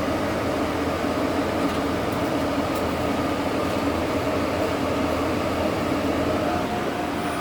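Steady machine hum with a few constant tones over a noisy rush, like a cooling fan or motor running.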